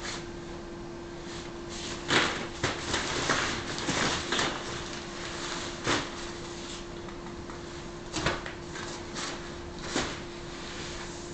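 Hollow plastic ball-pit balls clattering and knocking together as a toddler moves among them in a pop-up play tent: a cluster of clicks about two seconds in, then single knocks now and then, over a faint steady hum.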